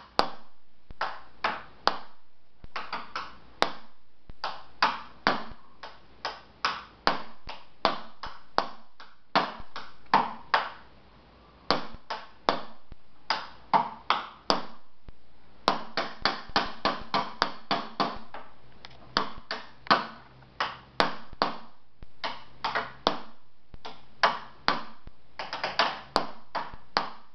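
A toddler drumming on wooden boxes with a stick: sharp, hollow knocks in irregular flurries of quick strokes, broken by short pauses, with one longer pause about eleven seconds in.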